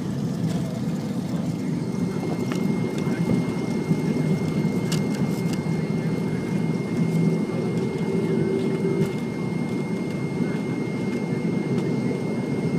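Cabin noise of a McDonnell Douglas MD-88 airliner on its takeoff roll and initial climb, its rear-mounted Pratt & Whitney JT8D turbofans at takeoff power: a loud, steady low rumble with a thin steady high whine over it.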